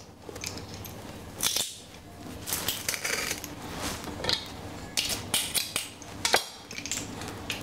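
Stainless-steel garlic press being worked over a steel bowl: a string of irregular metallic clicks and short rasps as the handles are squeezed and the crushed garlic is pushed out.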